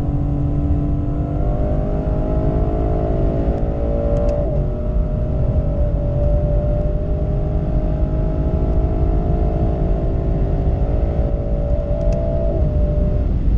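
Lexus LC 500's 5.0-litre naturally aspirated V8 (2UR-GSE) at full throttle, heard from inside the cabin, with its pitch rising steadily as speed builds. The 10-speed automatic shifts up from 4th to 5th about four seconds in and again near the end, each shift a brief drop in pitch. A heavy low rumble runs underneath.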